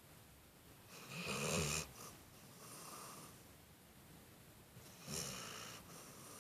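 Black Labrador retriever snoring loud: two snores about four seconds apart, about a second in and about five seconds in, each followed by a softer breath.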